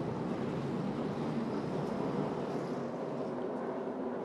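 A pack of NASCAR Craftsman Truck Series race trucks running together, their V8 engines blending into one steady drone.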